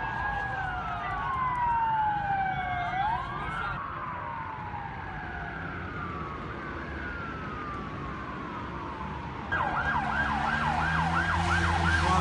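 Several emergency-vehicle sirens wailing at once, in slow overlapping rising and falling sweeps. About nine and a half seconds in it changes abruptly to a closer siren in a fast yelp, about three to four sweeps a second, over a low engine hum.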